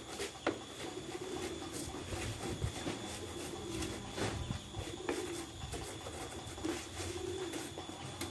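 A dove cooing over and over in short, low notes, with a few sharp knocks among them.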